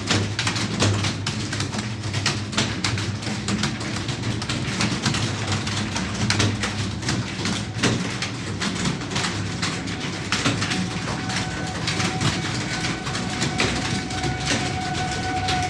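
Many computer keyboards clattering at once as a room of students type a timed Hindi typing test: a dense, fast run of key clicks over a steady low hum. About eleven seconds in, a steady tone with a few overtones joins and holds.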